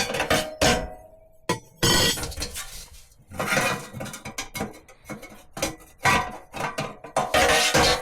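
Irregular metallic clanks and clinks with a short ringing after several of them, as sheet-metal parts of an oil drip stove are knocked and handled.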